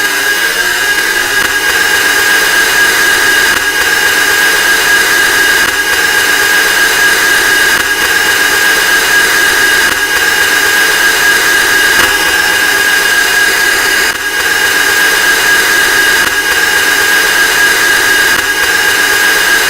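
Loud, harsh, unbroken roar of stacked power-up sound effects with a steady high whine running through it. It dips briefly about 14 seconds in.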